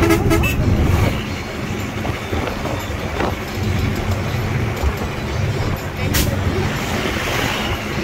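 Steady low rumble of a moving road vehicle's engine and tyres, heard from inside as it drives. There is a brief pitched sound at the very start and a single sharp click about six seconds in.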